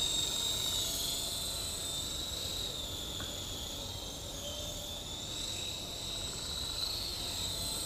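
SkyKing HCW8500 remote-control helicopter in flight: a steady high-pitched motor and rotor whine that wavers and grows a little fainter through the middle, then louder again near the end.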